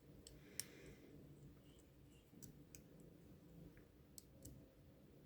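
Faint, scattered clicks, about half a dozen, of a pick hook and tension tool working the pin stack inside a Yale euro cylinder lock during single-pin picking.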